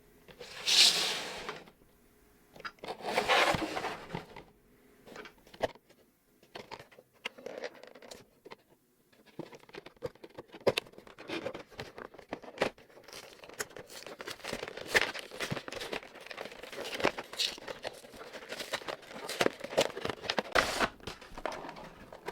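Plastic wrapping on a trading-card collection box being torn in two loud rips, followed by steady crinkling of plastic and the clicks and scrapes of cardboard packaging being handled.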